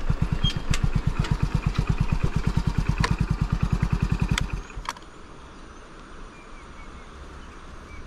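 A vehicle engine idling with an even, rapid low beat, then switched off about four and a half seconds in, leaving faint outdoor background.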